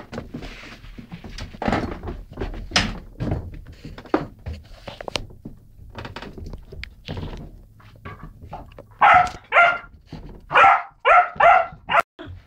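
Rhodesian ridgeback puppy playing with a rubber balloon: scattered light bumps and knocks, then a run of about five loud puppy barks in the second half.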